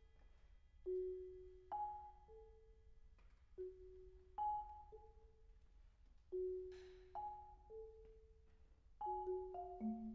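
Marimbas playing quiet, widely spaced single notes, each struck and left to ring. They form a slow three-note figure, low, then high, then middle, that repeats about every two and a half seconds, and near the end the notes come closer together.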